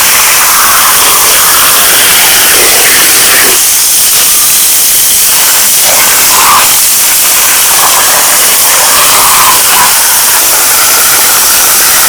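Loud, steady rushing of water, a continuous hiss like a waterfall or fast-running stream.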